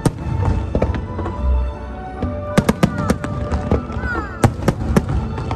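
Aerial fireworks shells bursting with sharp bangs, a quick cluster about halfway through and another near the end, over the show's accompanying music.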